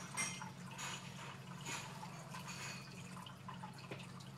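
Quiet room tone: a steady low hum with faint short clicks and rustles at irregular intervals.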